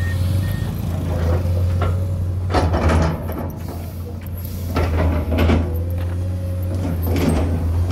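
Komatsu PC210 excavator's diesel engine running with a steady low drone while it works, with a series of heavy clunks and knocks every second or two. A reversing alarm beeps twice near the start.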